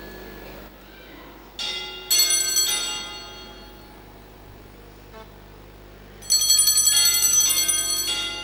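Altar bells rung at the elevation of the consecrated host: a brief ring about two seconds in, then a longer, rapidly shaken peal near the end.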